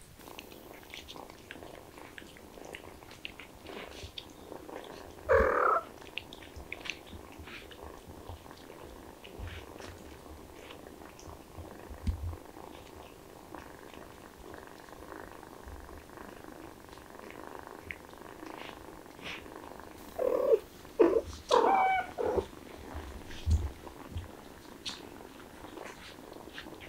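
Cats purring steadily, with faint ticks throughout. Short pitched calls cut in once about five seconds in and several times around twenty to twenty-two seconds in; these are the loudest sounds.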